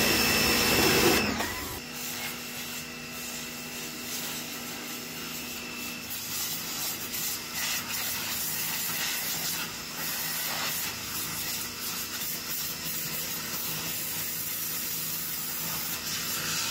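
Total TGT11356 1800 W electric pressure washer running, its high-pressure water jet hissing steadily as it blasts a motorcycle's engine and the wet ground, over the low hum of its motor. Louder for about the first second and a half, then it settles to an even spray.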